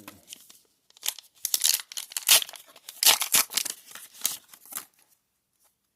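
A trading-card booster pack wrapper being torn open and crinkled by hand: a run of crackling, tearing rustles for about four seconds that stops shortly before the end.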